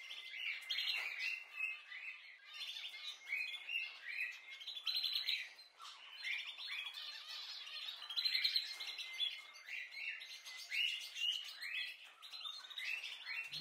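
Small birds chirping: many short, overlapping chirps in a steady chorus.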